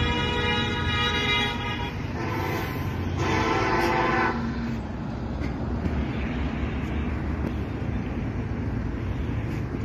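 Two long vehicle horn blasts, the first ending about one and a half seconds in and the second from about two to four seconds in, over a steady low rumble of road traffic.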